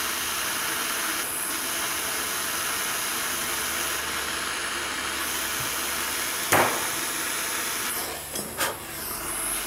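Butane hand torch flame hissing steadily as it heats a battery cable lug packed with rosin-core solder, melting the solder. A sharp click sounds about six and a half seconds in, and the hiss dips briefly near the end.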